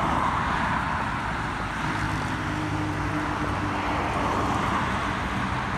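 Motorway traffic passing: a steady rush of tyre and engine noise, with a lower engine drone from a vehicle joining about two seconds in.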